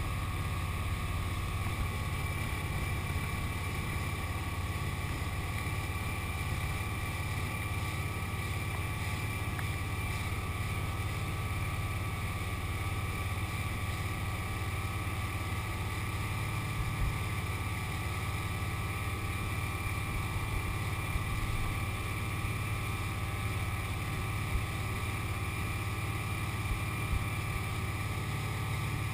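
Motorboat engine running steadily at towing speed, a constant low drone with a faint steady whine over it, mixed with the rush of the boat's wake.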